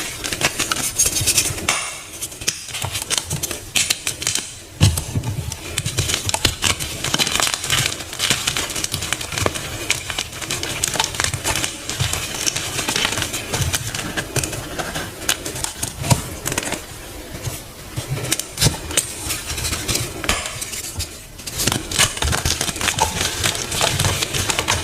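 Dyed crunchy blocks being crushed and crumbled, a dense run of crisp crackling crunches with occasional duller thuds, the loudest about five seconds in.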